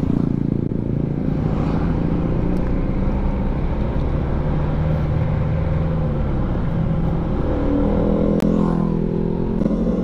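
Honda Click 125i scooter's single-cylinder engine running steadily at cruising speed, under road and wind noise. About three-quarters of the way through, another motorcycle's engine rises in pitch as it comes up alongside to pass.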